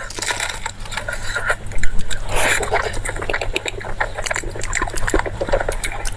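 Close-up eating sounds: wet mouth clicks and smacks of someone chewing a shrimp and pork cake, over a steady low hum.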